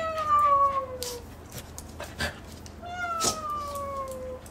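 Two long cat meows, each slowly falling in pitch and lasting over a second, about three seconds apart. The meows come from the owner, not a real cat: they are a decoy to set the dog searching.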